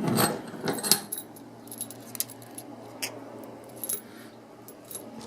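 Small metal clicks and clinks from handling a just-opened Olympia OLY70038 38 mm brass padlock and the shim and tension wrench in it. There is a quick run of clicks in the first second, then single clicks now and then.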